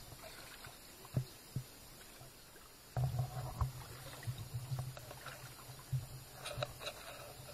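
Two short knocks about a second in, then from about three seconds in an uneven low rumble of water sloshing and thumping as a cast net is handled in river water.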